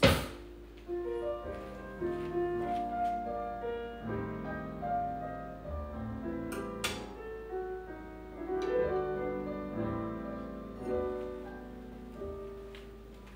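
Background piano music, with a few sharp clicks, the loudest right at the start.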